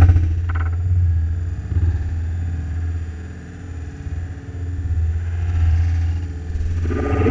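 CNC milling machine running with its spindle turning: a steady low hum, with a short sharp noise right at the start and a rising whine beginning near the end.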